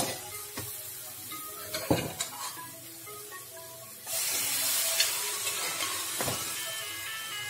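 Steel spatula scraping and knocking in a non-stick kadai of frying masala paste, then a loud sizzle about four seconds in as cooked pumpkin, potato and chana dal hit the hot pan.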